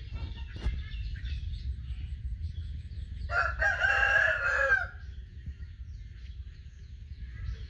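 A rooster crowing once, about three seconds in, a single call lasting roughly a second and a half, with faint high chirps behind it.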